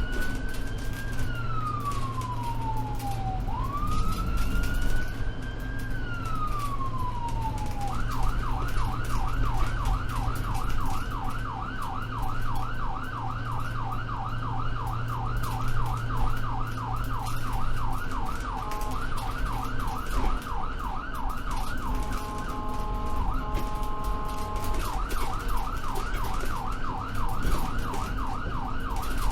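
Ambulance siren on a moving vehicle: two slow rising-and-falling wails, then a switch about eight seconds in to a fast yelp of rapid repeated sweeps. Near the middle the yelp briefly gives way to a few seconds of steady horn-like tones before the yelp resumes, over a low vehicle rumble that fades out about halfway through.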